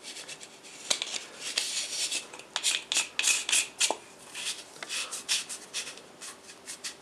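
Hands screwing a rubber lens hood onto the filter thread of a Samyang 85mm f/1.4 camera lens: irregular rubbing and scraping with a few small sharp clicks.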